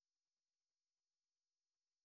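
Near silence: the soundtrack is muted, with no audible sound.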